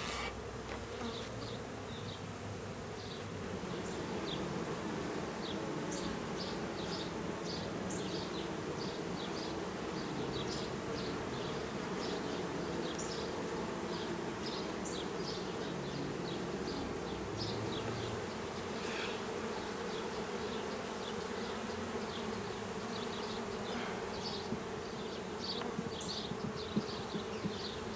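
Honey bees buzzing in a steady mass drone around the hive as a freshly installed package settles in.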